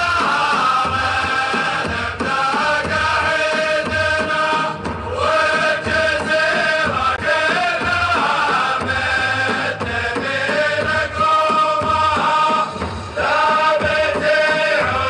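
Chanted Middle Eastern song: sung phrases with long held notes over a steady low beat.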